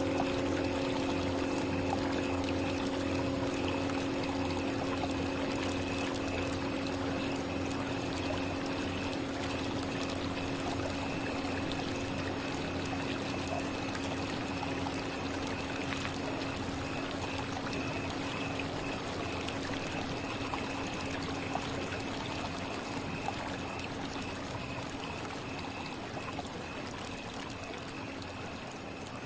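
Tibetan singing bowl tuned to C# ringing on with a steady hum and several higher overtones, slowly fading, over a steady rushing hiss.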